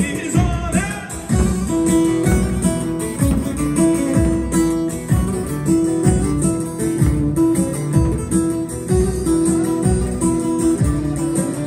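Loud amplified halay dance music, an instrumental passage with a plucked-string melody of short repeated notes over a steady drum beat.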